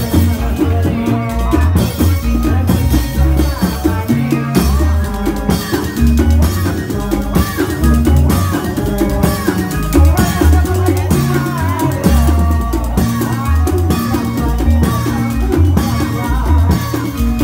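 Indramayu reog ensemble music: heavy, steady drumming with a melody line that bends in pitch over it.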